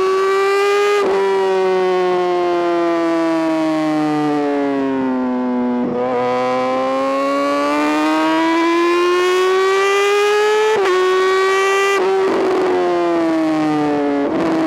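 2008 Honda CBR600RR's inline-four engine running at high revs, its high-pitched note sinking slowly for about six seconds and then climbing back, broken by a few brief interruptions.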